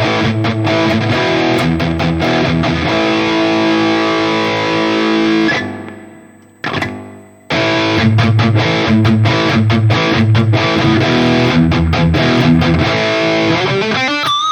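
High-gain distorted electric guitar played through a digital amp-modeling unit, a riff of many short chugged notes. About six seconds in it stops, one short stab sounds, and the riff starts again, ending on a held note.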